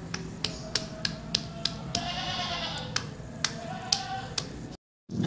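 Stone pestle knocking against chilies and garlic in a stone mortar (ulekan and cobek), sharp knocks about three a second at first, then more spaced out. A drawn-out, bleat-like call sounds in the background about two seconds in. The sound cuts out briefly near the end.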